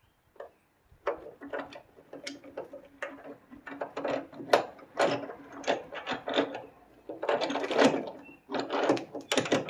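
Brake master cylinder being worked by hand onto its mounting bolts at a metal booster-delete plate: irregular metal-on-metal clicks, knocks and scrapes, coming thicker and faster in the last few seconds.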